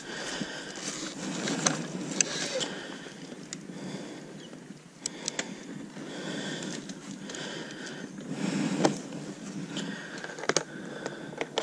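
Yamaha Raptor 660 quad rolling downhill with its engine dead, tyres crunching on a dirt and gravel trail, with a few sharp knocks and rattles at irregular moments. No engine is running, because the motor has failed and only clicks when they try to start it.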